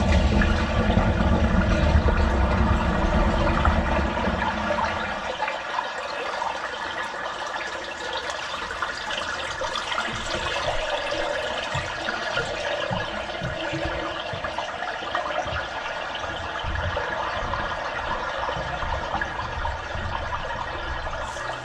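Water running and draining steadily, with a heavy low rumble in the first five seconds that then drops away.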